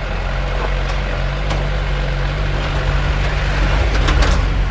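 Small box truck's engine running steadily as the truck drives slowly.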